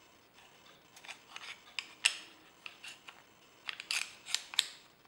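Sig Sauer Mosquito pistol's slide, with its recoil spring and guide rod, being fitted back onto the frame: a string of short clicks and scrapes of the parts, the loudest about two seconds in and around four seconds in.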